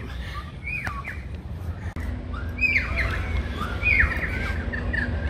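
Birds squawking in short calls that drop in pitch: one about a second in, then a run of them over the next few seconds, over a steady low rumble.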